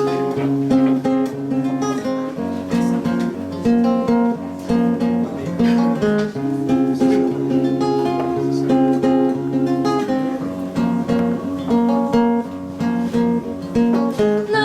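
Acoustic guitar strummed and picked in an instrumental passage between sung verses, chords changing every second or so.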